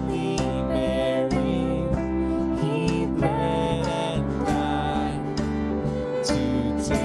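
Church worship music: a slow hymn played by a band with guitar, its notes and chords held steadily.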